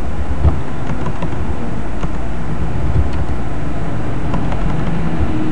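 Steady low rumbling background noise, with a few soft clicks of computer keyboard keys as a word is typed.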